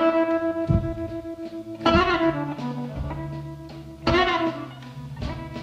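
Electric blues band playing: an electric guitar strikes a ringing chord about every two seconds, answering the vocal, over a second guitar and drums. A sung word comes near the end.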